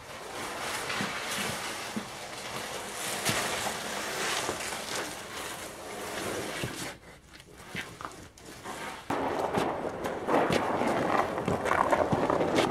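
Handling noise from a boxed engine in a plastic bag: cardboard and plastic rustling with small knocks and footsteps, then from about nine seconds in a louder scraping as the wrapped engine is dragged across the floor.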